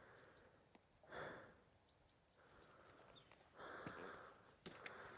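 Near silence: faint outdoor quiet with two soft, short puffs of noise about a second in and near the middle, and a few faint clicks near the end.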